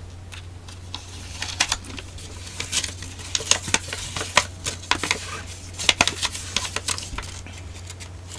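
Paper instruction leaflet being unfolded and handled, with irregular crinkles and crackles throughout.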